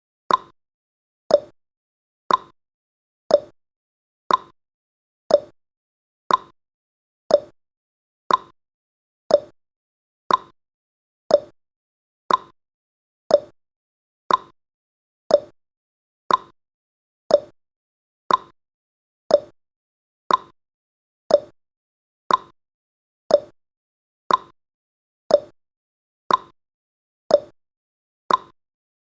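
Countdown timer sound effect: a short, sharp tick once every second, evenly paced, with silence between the ticks.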